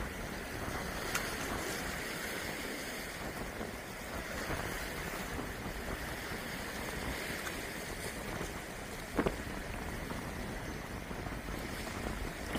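Sea waves washing against a rocky shore with wind rumbling on the microphone, a steady rush throughout. Two brief sharp clicks stand out, about a second in and about nine seconds in.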